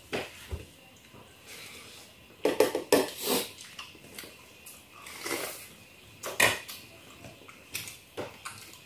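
Spoons clinking and scraping on ceramic plates and bowls as food is eaten, in short irregular clatters with a busier run about two and a half to three and a half seconds in.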